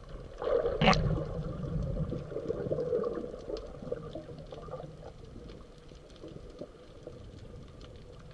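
Water bubbling and gurgling, rising in a surge about half a second in with a sharp knock near one second, then fading over the next few seconds; faint clicks are scattered throughout.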